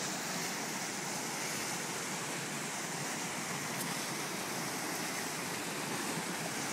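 A large waterfall in heavy flood after days of rain, its gushing water making a steady, even rushing sound.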